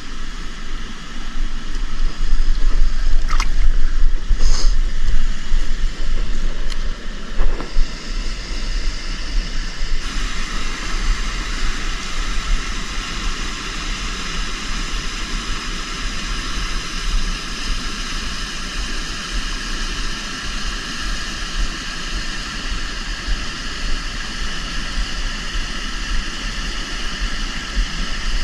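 Steady rush of river water, with wind rumbling on the microphone. The wind is stronger in the first several seconds, where a few brief sharp sounds also occur.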